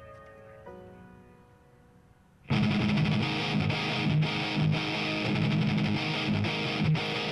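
Rock song playing: a quiet intro of a few sustained notes fades away, then about two and a half seconds in the full band comes in loud with distorted electric guitars.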